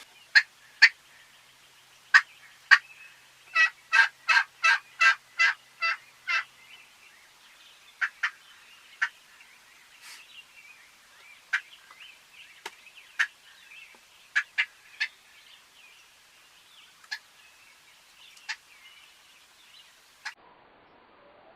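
Turkey calling: short, sharp single clucks scattered throughout, and a run of about nine evenly spaced yelps, about three a second, starting some three and a half seconds in.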